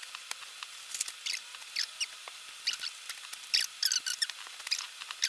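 Paper and card rustling and crinkling in quick irregular bursts as a subscription box's inserts and cards are sorted through by hand.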